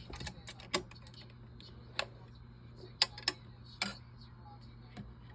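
Scattered sharp clicks and taps, about six clear ones, the loudest about three seconds in, over a steady low hum.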